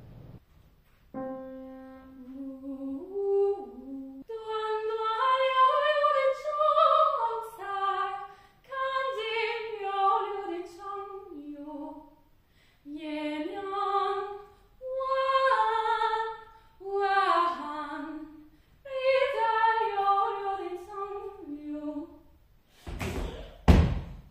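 A woman singing a melody as a vocal warm-up, in phrases of a few seconds with short pauses for breath. A couple of loud thumps come near the end.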